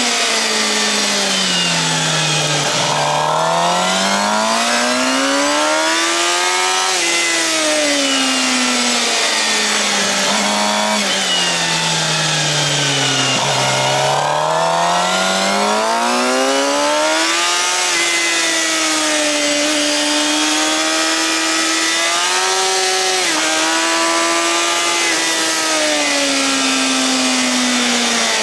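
Suzuki GSX-R750's inline-four engine through a Yoshimura R-11 slip-on exhaust, heard from on the bike over wind rush. The engine note falls as the bike slows for a corner and rises again under acceleration, twice, then holds fairly steady with small changes near the end.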